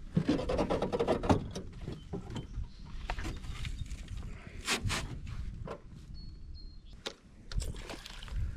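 Irregular knocks and clicks of gear and hull being handled in a small boat, over a low wind rumble on the microphone.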